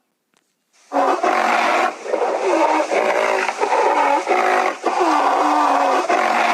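An animal calling over and over in quick succession, each call with a dipping, curving pitch, starting after a brief silence about a second in.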